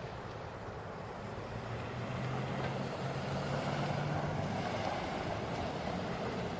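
Engine of a 2007 Chevrolet Avalanche pickup running steadily, its low hum swelling and rising slightly about two seconds in, then easing back.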